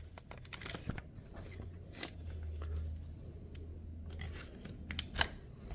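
Scattered plastic clicks and scrapes of a Samsung Bespoke Jet's Jet Dual brush head being handled as its brush roller is slid out.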